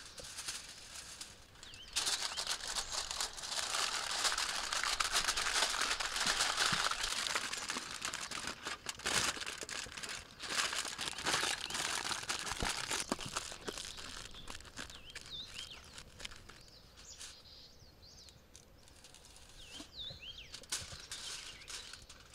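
Dry rustling and crinkling, loudest in the first half and dying down after. A small bird chirps briefly a few times in the second half.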